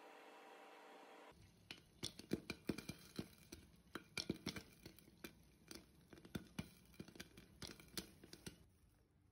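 Popcorn kernels popping in a covered pan: irregular sharp pops, several a second, thinning out near the end. A steady hum fills the first second or so before the popping starts.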